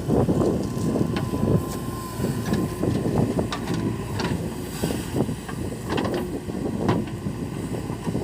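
Diesel engine of a JCB 3DX backhoe loader running under load while loading, with several sharp knocks scattered through the steady engine noise.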